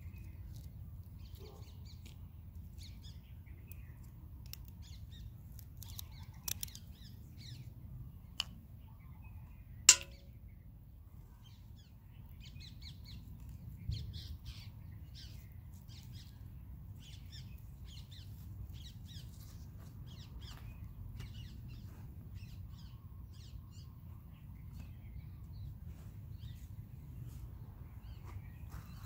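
Birds calling over a steady low rumble, with a few sharp clicks and snaps from a rubber-band-and-bottle-cap shibori binding being undone by hand. The loudest snap comes about ten seconds in, and a dull knock follows a few seconds later.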